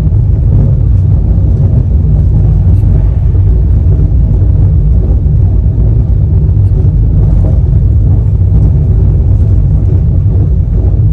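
Loud, steady low rumble of a moving express passenger train heard from on board: wheels running on the rails, with a few faint ticks.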